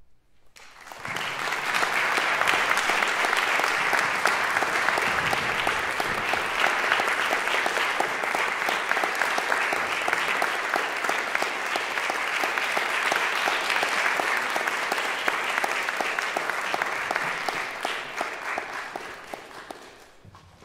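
Concert hall audience applauding, breaking out about a second in after a silence and dying away near the end.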